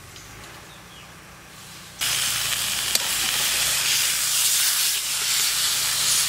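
Sirloin steak and onions sizzling in a cast iron skillet: a faint hiss for the first two seconds, then a loud, even sizzle as the steak is turned with tongs, with one sharp click soon after.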